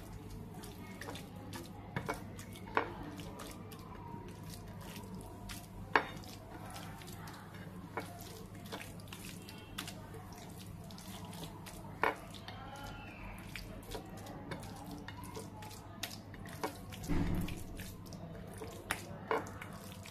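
A bare hand kneading and mixing mashed spiny gourd with mustard oil on a ceramic plate: soft wet squishing, with scattered sharp clicks as fingers strike the plate. A steady low hum runs underneath.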